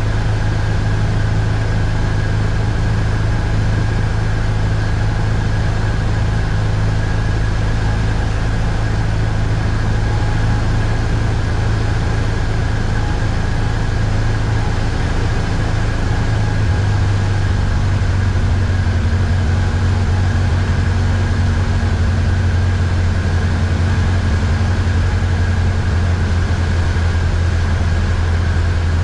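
Light aircraft's engine and propeller droning steadily, heard from inside the cabin during the approach to land; the engine note drops slightly a little past halfway.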